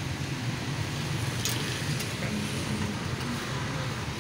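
Steady road traffic noise, a continuous low rumble and hiss, with a short click about a second and a half in.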